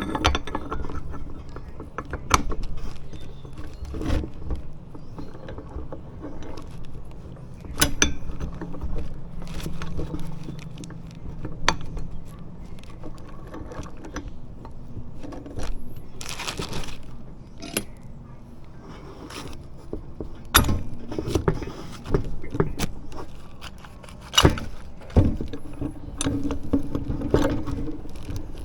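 Metal tools and brake parts clinking and knocking as they are handled during work on a motorcycle's rear brake caliper, with irregular sharp clicks and a short hiss about halfway through.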